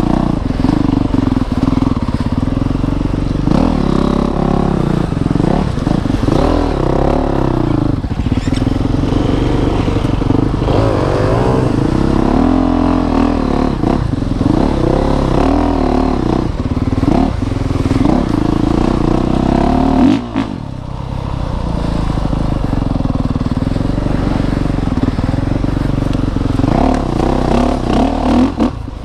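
2019 Honda CRF450RX's 450cc single-cylinder four-stroke engine under load on a trail ride, its pitch repeatedly rising and falling with the throttle. The engine drops off briefly about two-thirds of the way through, then picks up again.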